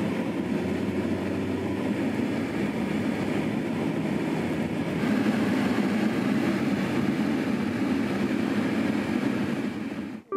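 A car driving on a paved road, heard from inside the cabin: steady engine and tyre noise with a low hum.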